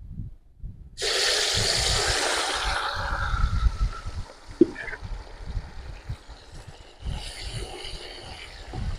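Masala-coated small fish dropped into hot groundnut oil in an aluminium kadai: a sudden loud sizzle about a second in that fades to a steady frying bubble. There is a single sharp knock about halfway, and the sizzle swells again near the end.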